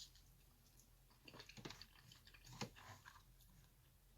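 Faint close-up chewing: a few soft crunches and mouth clicks, clustered about a second and a half in and again near the middle.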